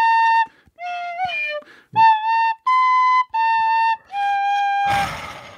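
Tin whistle playing a short tune of separate held notes, one gliding down in pitch, ending on a longer held note. A burst of breathy noise follows near the end.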